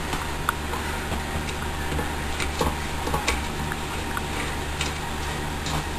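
Scattered light metal clicks and ticks as a threaded BMX headset nut is screwed on by hand over the bearings, heard over a steady low hum.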